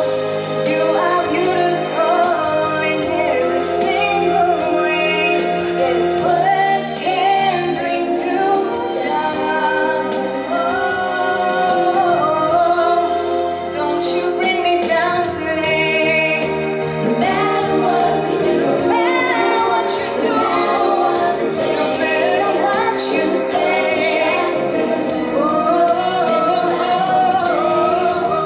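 A young female solo singer performing a slow pop ballad into a handheld microphone over instrumental accompaniment.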